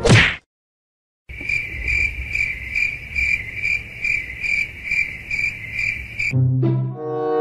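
Cricket chirping in an even rhythm, about two to three chirps a second, after a short falling swoosh at the very start. Music comes back near the end.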